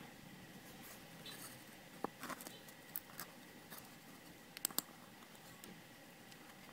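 Faint handling sounds of fishing line and a spinning-reel spool: scattered light clicks and scratches over a soft hiss, with two sharper clicks close together about two-thirds of the way in.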